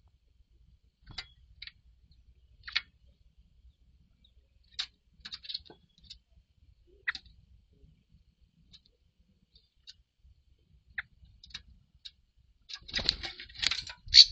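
Grey-cowled wood rail (saracura-três-potes) giving scattered short, sharp calls, then a louder, rapid burst of calling in the last second or so.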